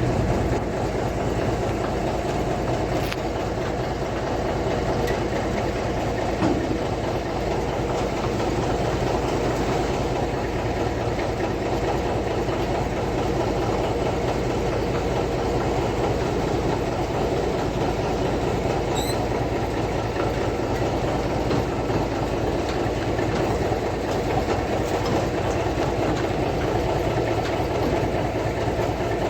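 An engine or motor running steadily, a continuous mechanical noise at an even level.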